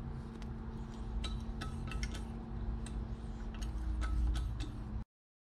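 Hand thread tap in a T-handle tap wrench being rocked back and forth to cut M8 threads in an aluminum engine block through a drilling fixture: scattered light metallic ticks and clinks over a low steady hum. The sound cuts off abruptly near the end.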